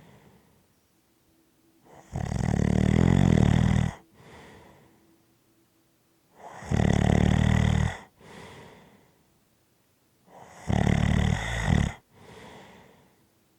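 Rhythmic snoring: three loud snores about four seconds apart, each followed by a softer breath.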